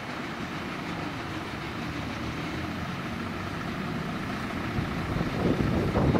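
A train running on the elevated railway line, a steady rumble that swells slightly near the end.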